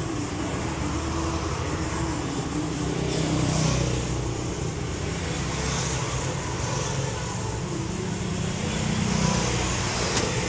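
Steady road traffic and vehicle engine noise, swelling twice as vehicles pass.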